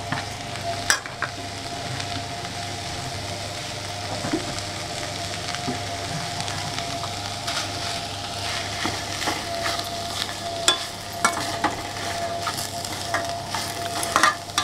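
Fish and chopped vegetables sizzling in a stainless-steel pan while being stirred, the spatula scraping and clicking against the pan now and then, over a steady hum.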